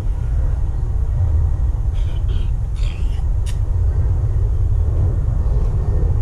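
Wind buffeting the camera's microphone: a steady low rumble that flutters, with a few brief higher-pitched sounds about two to three and a half seconds in.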